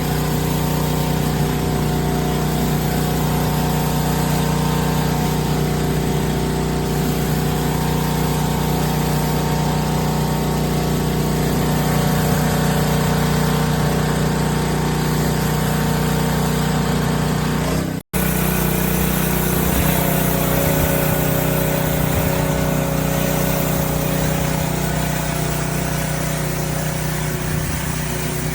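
Pressure washer running steadily, its motor's hum under the hiss of high-pressure water spraying through a spinning surface cleaner.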